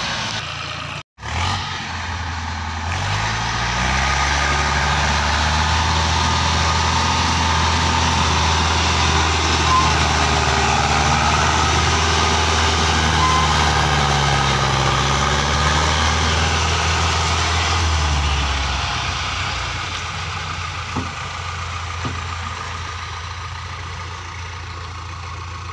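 HMT tractor's diesel engine working hard under a heavy sugarcane load, mixed with a backhoe loader's diesel engine; the engine pitch rises and falls as they pull and push. The sound cuts out briefly about a second in, and it drops quieter after about eighteen seconds.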